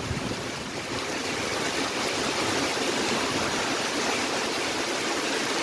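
Heavy rain falling steadily on grass, puddles and trees: an even, unbroken hiss.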